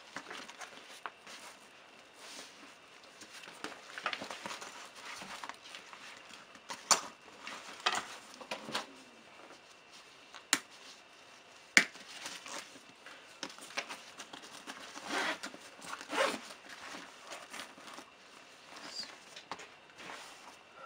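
A new Lowepro Classified 200 AW camera bag being handled: its fabric and pockets rustle and its fasteners are worked, with a few sharp clicks.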